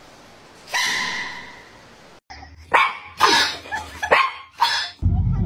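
A dog barks about five times in quick succession, in the second half. Before that there is a single sharp sound that fades away, about a second in.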